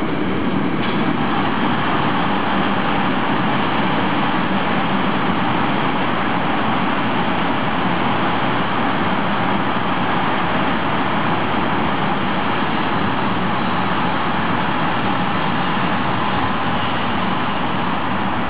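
Freight train of container and tank-container flat wagons rolling past at speed: a steady noise of steel wheels running on the rails, unchanging in strength.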